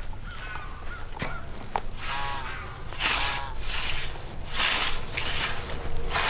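Hand scythe swishing through Bahia grass in about four short, even strokes, one every second or so, starting about three seconds in. Before that, a bird calls twice.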